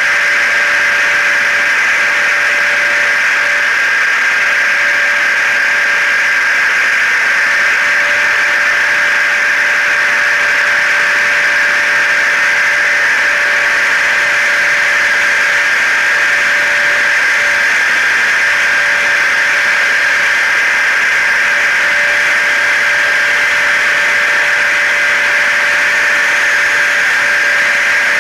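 Steady blended white noise of a hair dryer, a vacuum cleaner and a car running together: an even motor whoosh with a constant high whine in it, not changing at all.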